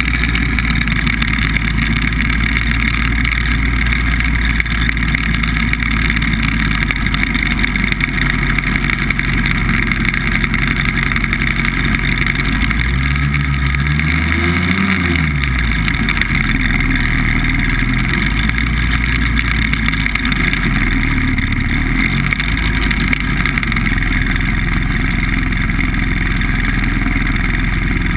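BBV2+2 hovercraft's engine and fan running steadily under way, a loud drone. Its pitch rises and falls once about halfway through.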